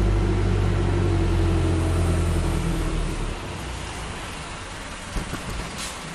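A motor vehicle's engine running nearby as a steady low drone with a slightly falling tone, fading away after about three seconds, followed by a few light knocks near the end.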